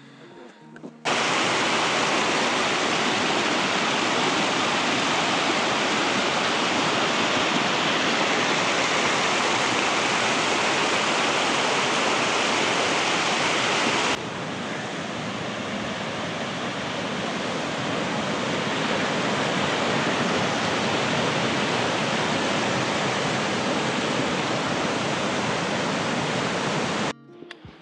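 Loud rushing of a mountain stream close to the microphone, a steady roar of water with no pitch or rhythm. It starts abruptly about a second in, drops slightly in level about halfway through, and cuts off abruptly near the end.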